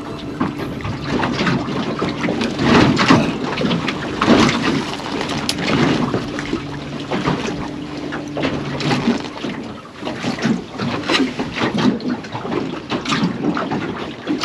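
Small fishing boat on open water: wind on the microphone, water noise and irregular knocks, with a steady low hum that stops about nine seconds in.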